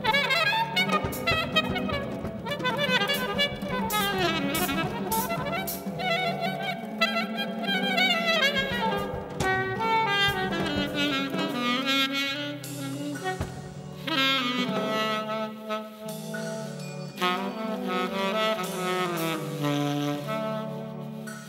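Live jazz duo of saxophone and drum kit: the saxophone plays quick, wandering runs over drums and cymbal strikes.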